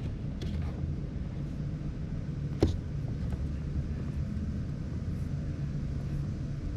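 A vehicle engine running with a steady low rumble, and a single sharp click about two and a half seconds in.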